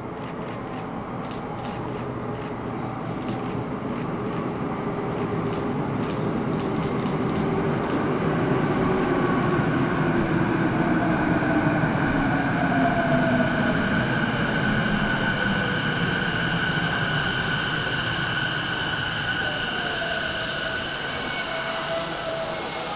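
Electric commuter train pulling into a station, its motor whine falling in pitch as it slows and growing louder as it nears. A high hiss joins about two-thirds of the way through.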